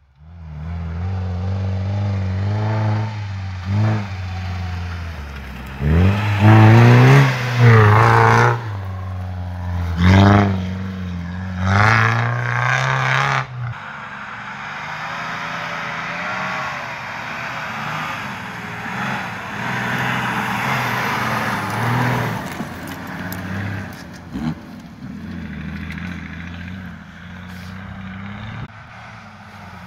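Off-road 4x4's engine revving hard several times, the pitch rising and falling in surges, then running more steadily under load.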